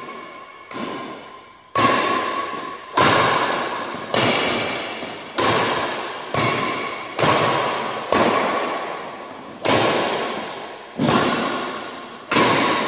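Badminton rally: rackets hitting a shuttlecock about a dozen times, roughly once a second. Each sharp hit rings on in a long echo off the hall's metal walls.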